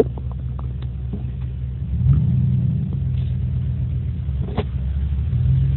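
Pickup truck engine running steadily, picking up and getting louder about two seconds in as the truck accelerates. A few light clicks in the first second and a sharper click about four and a half seconds in.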